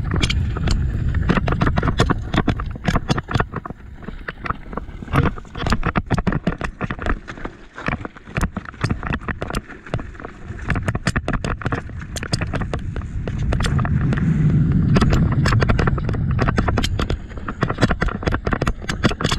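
Mountain bike descending a rocky, loose-dirt downhill trail: tyres crunching over gravel and stones and the bike rattling and clattering in rapid sharp knocks, over a low rumble that swells about two-thirds of the way through.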